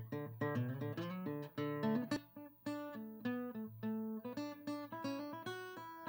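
Background music: acoustic guitar playing a line of plucked notes, with a brief pause about two seconds in.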